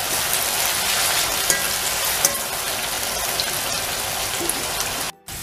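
Sliced onions sizzling steadily as they deep-fry in hot oil over a high flame. The sizzle cuts off abruptly about five seconds in.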